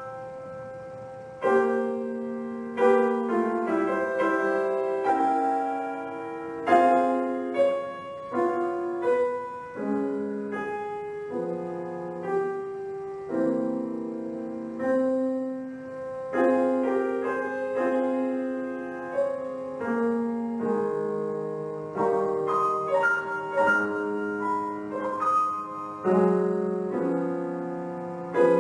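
Solo piano playing a slow classical piece, chords and melody notes struck and left to die away.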